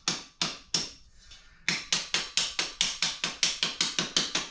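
Small hammer from a shelving kit tapping repeatedly on a black steel shelf upright: a few quick strikes, a brief pause about a second in, then a steady run of about five sharp taps a second.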